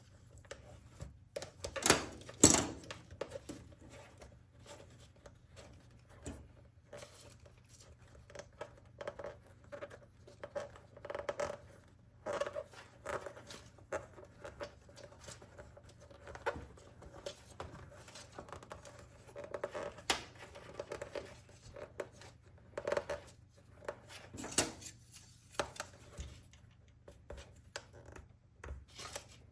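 Vinyl decal and its backing sheet being handled and rubbed down onto a number plate: faint irregular scraping and crinkling with scattered sharp clicks, the loudest pair about two seconds in.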